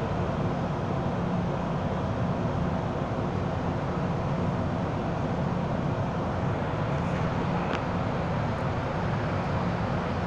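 Steady hum and rumble of an MTR M-Train heard inside the passenger car, with a faint click about eight seconds in.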